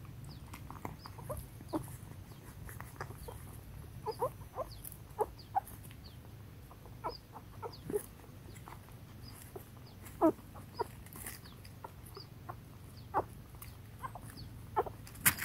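A litter of young puppies squeaking and whimpering in their den: short, high-pitched cries scattered every second or so, a little louder and closer together near the end.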